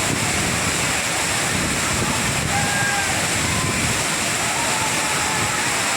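Waterfall: water rushing and falling in a steady, unbroken roar.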